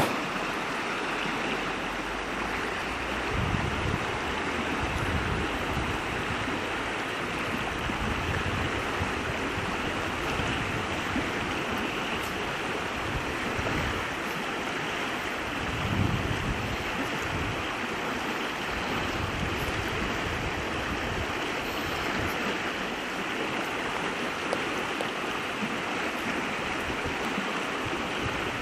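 Mountain stream rushing over rocks in a steady, even wash of water noise, with a few low gusts of wind on the microphone.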